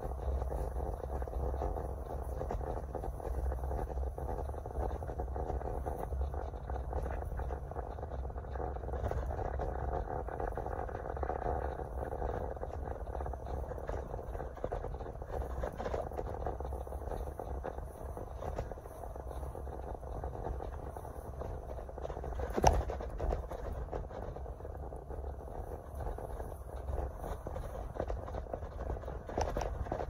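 Steady road and engine noise heard inside a moving car's cabin, a low rumble with a light hiss above it. One sharp click or knock stands out about two-thirds of the way through.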